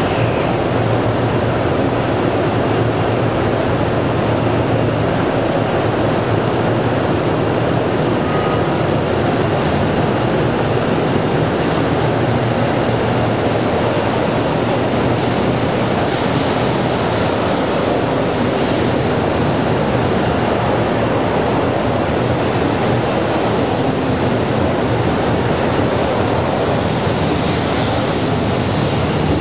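A 100 Series Shinkansen train starting off and rolling past, a steady rushing rumble from its running gear and motors that holds an even level throughout.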